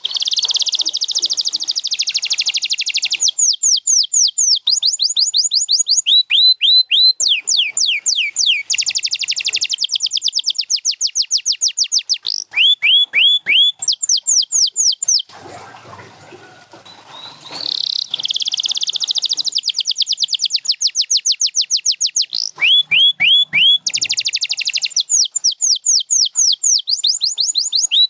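Domestic canary singing a long song of fast trills and runs of rapidly repeated sweeping notes, switching phrase every second or few. It pauses for about two seconds near the middle, then carries on.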